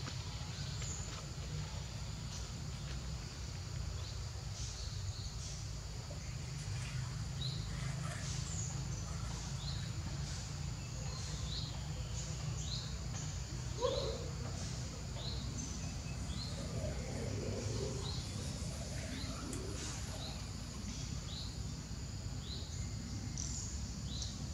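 Outdoor background noise with a steady low rumble, over which small birds chirp repeatedly: short high calls about once or twice a second.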